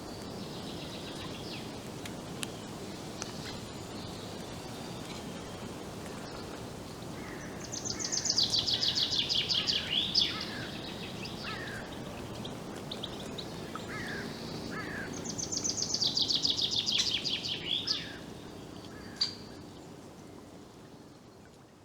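Forest ambience with a songbird singing twice, each song a rapid run of notes falling in pitch and lasting about two and a half seconds, with scattered short chirps from other birds over a steady low background hiss. The sound fades out near the end.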